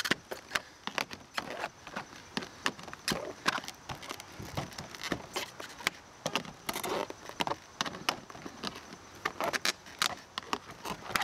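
Vinyl siding corner trim clicking and knocking as a siding removal tool is worked along its edge to snap the new piece over the old corner: an irregular string of light sharp clicks.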